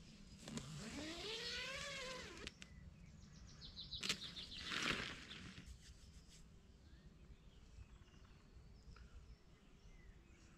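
Faint woodland birdsong: a quick high bird trill about three seconds in and scattered chirps later. Near the start there is a long call that rises and then falls in pitch, and a short louder noise comes at about four to five seconds.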